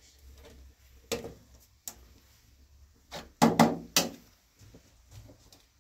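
Metal ladle knocking against a metal serving tray and cooking pot: a few separate sharp clanks, the loudest cluster about three and a half to four seconds in.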